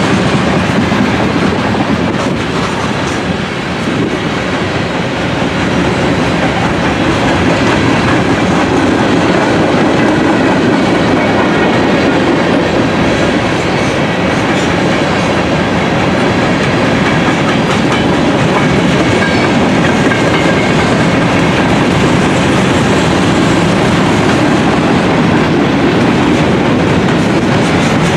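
A train's cars rolling steadily past at close range, their wheels running on the rails, loud throughout.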